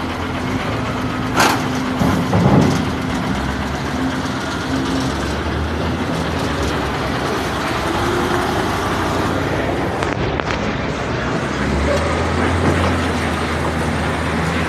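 Diesel engine of a container tractor-trailer running steadily, with a sharp click about a second and a half in; near the end the low engine note grows stronger as the truck pulls its 40-foot container away.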